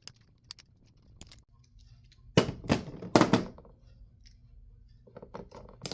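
Clicks and clattering knocks of small radio parts being pried, handled and set down during disassembly, with a cluster of louder knocks about two and a half to three and a half seconds in and more clicks near the end.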